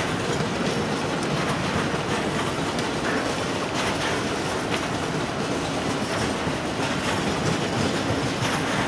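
Freight train of bogie tank wagons rolling steadily past, the wheels clicking over rail joints.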